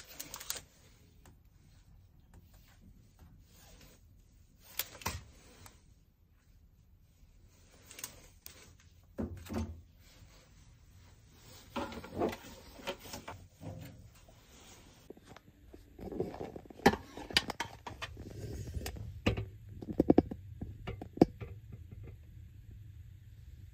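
Household handling sounds: scattered knocks, clunks and clatters of objects being moved, growing busier in the last third, with a low steady hum underneath near the end.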